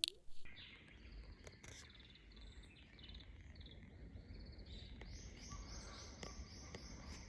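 Faint outdoor ambience with a bird calling. A few scattered high chirps give way, a little past the middle, to a quick run of evenly repeated chirps at about three a second, over a low steady rumble.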